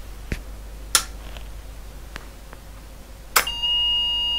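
Switch clicks, then about three seconds in the Olympia ESW 100-KSR electronic typewriter terminal powers up and its beeper sounds one steady, high musical note. The note is the machine's sign of a failed start-up, which the repairer puts down to its processor not running properly.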